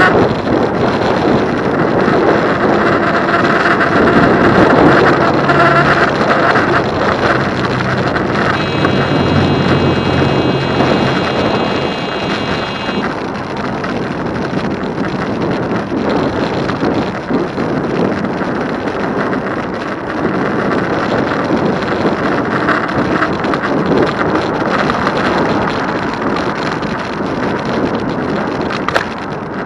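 Wind rushing over the microphone of a moving e-bike, a loud steady rush. A high steady tone of several pitches sounds for about four seconds roughly a third of the way in.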